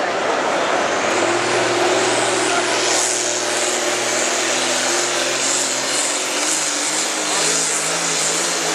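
Diesel engine of a 15,000 lb farm stock pulling tractor running at full throttle under load as it pulls the sled, with a high whine rising over the first few seconds. The engine's pitch drops in the last couple of seconds as the load builds.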